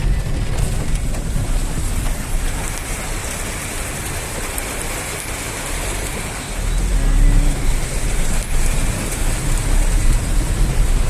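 Heavy rain pouring down in strong wind, the gusts buffeting the microphone as a deep rumble that gets louder about two-thirds of the way through.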